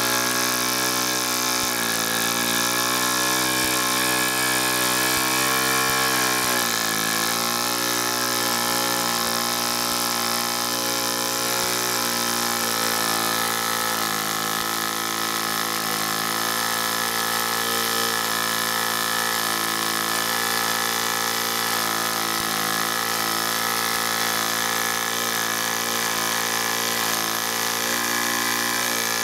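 Small brass model steam engine running fast on steam from a small boiler: a steady, high-pitched buzz from its rapid strokes over a hiss. Its speed sags briefly about seven seconds in, then holds steady.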